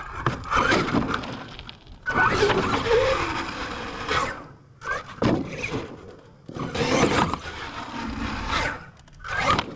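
Radio-controlled monster truck running: its motor whines and revs in several bursts with short breaks between them, mixed with tyres scrabbling and banging on dirt and ramps.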